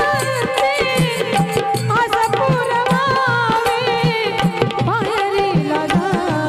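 A woman singing a folk song into a microphone, her melody wavering and richly ornamented, over steady drum beats and a held drone note.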